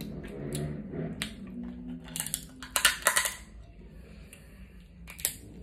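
Boiled snow crab leg shells cracked and snapped apart by hand, a cluster of sharp cracks in the middle and one more crack near the end. A closed-mouth hum of a voice during the first two seconds.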